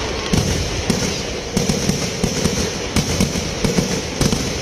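Kerala temple fireworks (vedikettu) going off in a continuous barrage: a steady rumble of explosions with a loud bang about every half second to a second.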